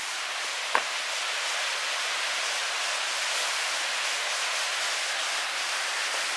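Steady, even hiss with one short click a little under a second in.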